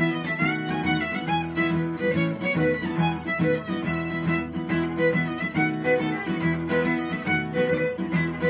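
Fiddle playing a Celtic tune in quick notes, accompanied by a strummed acoustic guitar.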